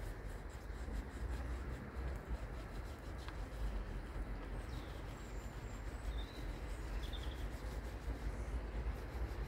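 Steady low outdoor rumble with a few faint, high bird chirps about halfway through.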